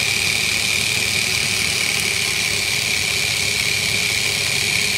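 Small brushed DC toy motors running together at speed, giving a steady high-pitched whine over a buzzing rattle.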